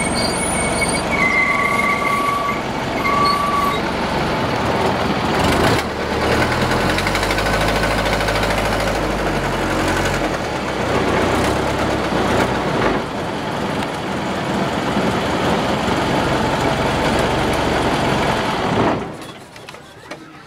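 A boat's engine running steadily under way, with wind and water noise; the engine sound drops away sharply near the end.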